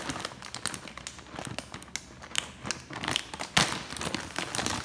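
Food packet crinkling as it is closed, with scattered sharp crackles and one louder crackle about three and a half seconds in.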